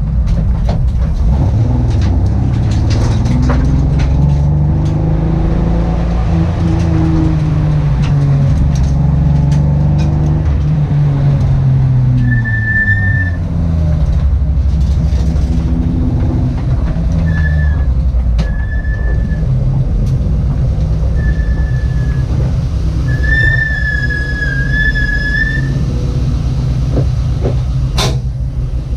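Car engine running under way, its pitch rising and falling as it accelerates and changes gear; the engine is one with a misfire. Several short, high, steady whistling tones come in the second half.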